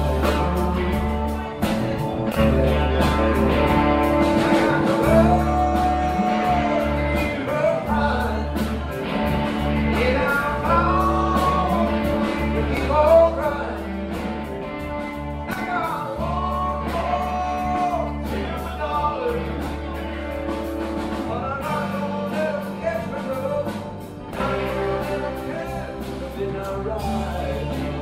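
Live blues-rock band with guitars playing a song while a man sings the lead vocal.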